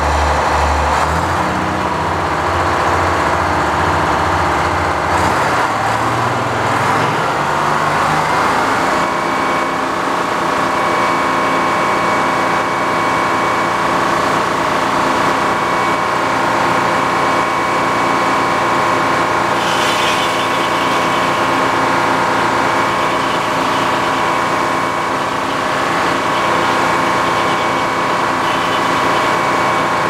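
Old-style circular sawmill running: a low, even pulsing of its power unit in the first several seconds gives way to the steady whine of the large circular saw blade spinning. In the second half the carriage feeds a big poplar log into the blade and the cut begins.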